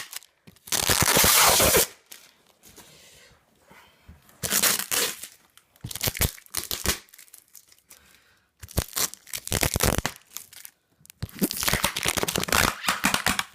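Packing tape and cardboard being ripped open on a parcel: about five loud tearing pulls, the longest near the start, with crinkling of the wrapping in between.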